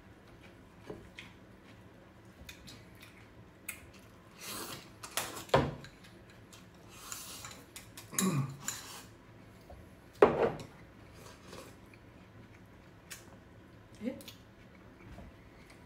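Chopsticks and tableware clinking against ceramic bowls and plates during a meal: scattered light clicks and knocks, with a few louder clusters.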